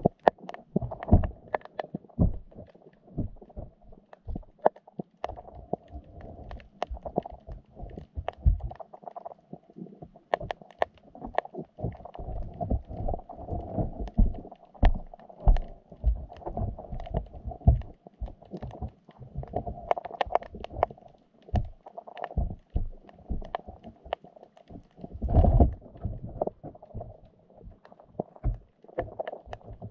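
Muffled underwater sound picked up by a GoPro in its waterproof housing inside a wire fish trap: irregular dull thumps and short clicks over a steady muffled water noise, with one heavier thump near the end.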